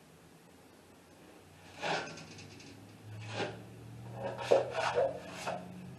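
Metal drywall taping knife scraping wet joint compound, with single strokes about two seconds in and near three and a half seconds. Near the end comes a quick run of about four scrapes as the knife is wiped on the edge of the mud pan.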